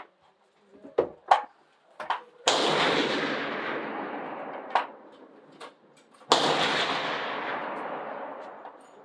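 Two rifle shots on a benchrest firing line, about four seconds apart, each ringing out and dying away over a few seconds under the covered shooting shed. A few shorter, sharper cracks come before the first shot and one between the two.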